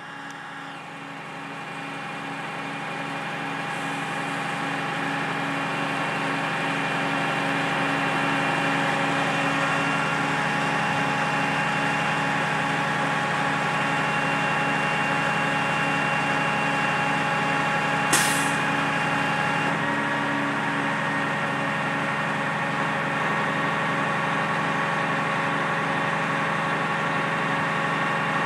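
Semi truck's diesel engine running steadily as the tilt-bed trailer is tilted under a 40-foot shipping container, fading up over the first few seconds. A short, sharp hiss of air comes about two-thirds of the way through.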